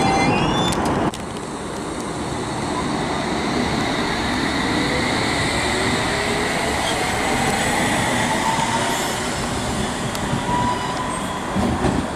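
A train on the tracks, with a high wheel squeal for the first second. The sound drops sharply, then gives way to a steady rumble with a whine that slowly rises in pitch.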